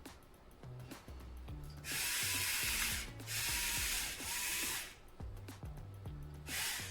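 A pepper mill being twisted over the chicken in three grinding bursts of about a second each, over background music with a low bass line.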